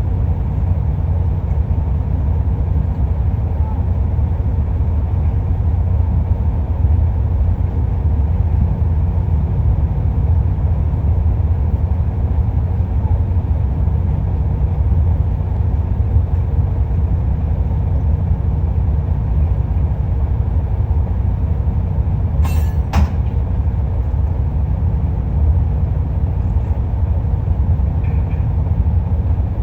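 Excavator's diesel engine running steadily with a deep, low rumble. Two sharp clicks come close together about two-thirds of the way through.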